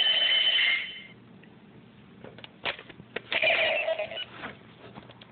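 Power Rangers Megaforce morpher toy playing electronic ringing tones through its small speaker as it responds to a card's barcode. One burst lasts about a second, a few short clicks follow, and a second burst comes about three and a half seconds in.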